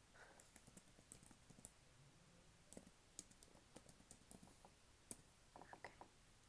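Computer keyboard being typed on softly, with quiet, irregular keystroke clicks.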